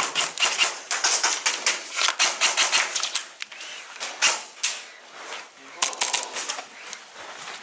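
Airsoft guns firing: an irregular run of sharp cracks and clicks, thick over the first three seconds, then a few scattered shots.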